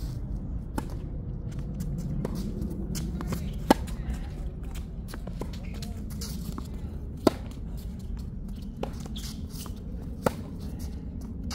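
Tennis rally: sharp ball strikes about every one and a half seconds, alternating louder and fainter as the ball goes back and forth between the two ends of the court, over a low steady background rumble.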